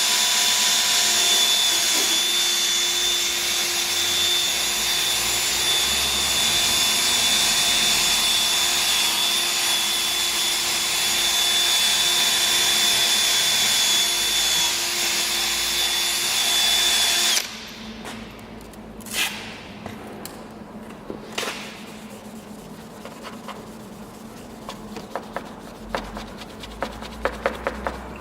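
Drill spinning a wet 3M 3000-grit sanding pad against a plastic headlamp lens, a loud steady whine that stops suddenly about 17 seconds in. After it, quieter rubbing and scattered light clicks.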